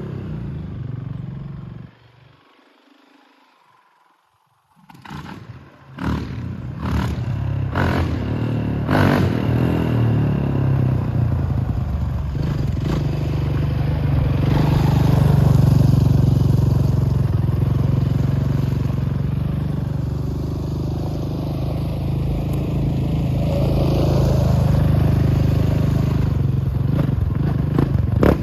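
Honda TRX450 quad's four-stroke single-cylinder engine running on a test ride. It drops away to near silence about two seconds in and comes back a few seconds later, with several sharp clatters soon after, then runs on steadily, swelling louder twice.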